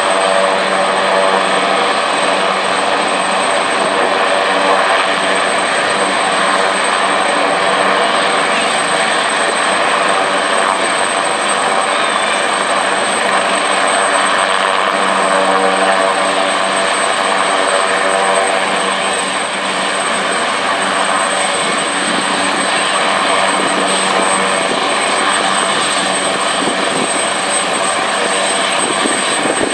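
AgustaWestland AW139 helicopter running on the ground, its twin turboshaft engines and main rotor turning steadily, with a constant high turbine whine over the rotor noise.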